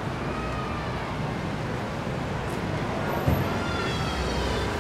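City street ambience: steady traffic noise with faint voices of passers-by, and a short thump a little over three seconds in.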